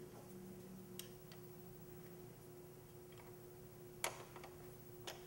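A few light metal clicks and taps as a motorcycle rear-set footpeg bracket is handled and fitted against the frame, the sharpest about four seconds in, over a faint steady hum.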